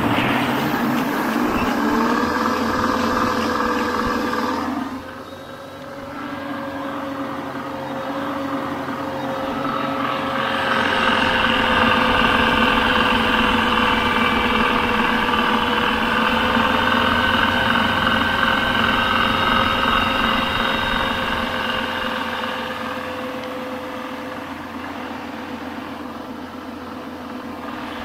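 Homemade Pelton-wheel micro-hydro turbine running, its rewired Smart Drive washing-machine motor working as a generator, with a steady whine over the rush of the water jet. It sounds like a washing machine on spin cycle. The whine rises slightly in pitch about two seconds in, and the rushing dips briefly near five seconds and then grows louder.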